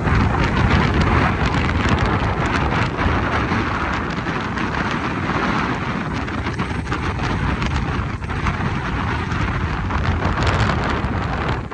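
Strong gusting wind buffeting the microphone: a loud, continuous rushing roar with a heavy low rumble that swells and eases slightly.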